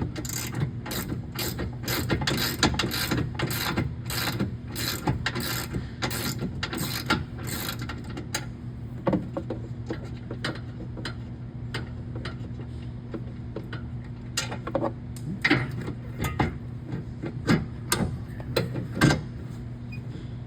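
Socket ratchet clicking steadily, about three clicks a second, as a 13 mm bolt is turned out of the bed latch. The clicking stops about eight seconds in, and only a few scattered clicks and knocks follow. A steady low hum runs underneath.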